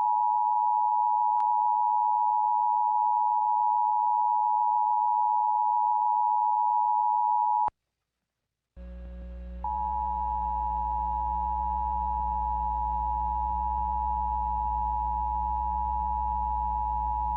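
Emergency Alert System attention signal: a steady electronic alarm tone sounding for about eight seconds, then cutting off. After about a second of silence a low hum comes in, and the attention tone starts again over it for about eight more seconds.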